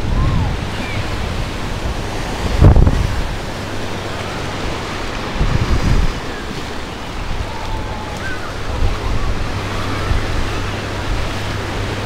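Ocean surf washing on a beach, with wind buffeting the microphone in gusts, the strongest about two and a half seconds in.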